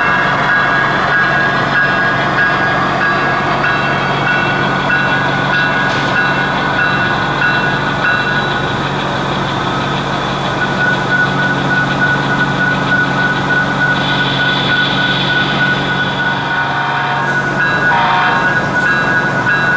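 HO scale model diesel locomotive's onboard sound system playing a steady diesel engine running sound through its small speaker as the model moves slowly, with a brief extra tone near the end.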